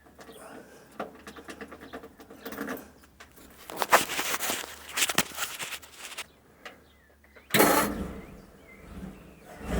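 The 1941 Ford pickup's flathead V8 is cranked on the starter with the choke disconnected and a freshly emptied fuel bowl, and catches suddenly and starts running about three-quarters of the way in.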